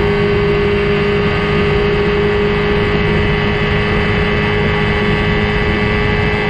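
Boat motor running steadily, an even hum with a held tone over a rushing noise.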